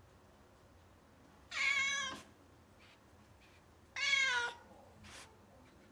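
Domestic cat meowing twice, two loud calls of about half a second each, some two and a half seconds apart, the second dropping in pitch at its end. These are calling meows at a gate, summoning the owners.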